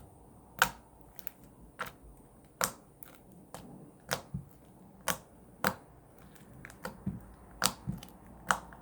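Sticky borax slime poked and pressed with fingertips, giving a series of sharp, wet clicks and pops about once a second.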